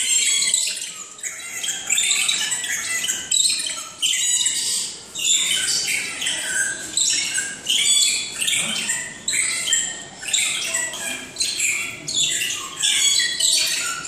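Many birds calling at once: a dense chorus of short, high-pitched chirps and squawks repeating closely over one another.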